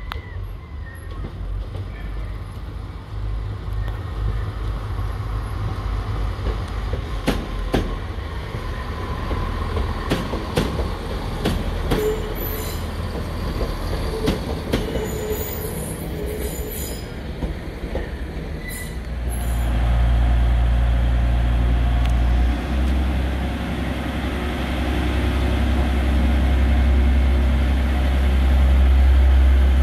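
A diesel multiple unit in EMR Regional livery rolls past on the rails, its wheels clicking over rail joints with a short squeal midway. Then a TransPennine Express Class 185 diesel unit's engine runs at the platform as a loud, steady low drone.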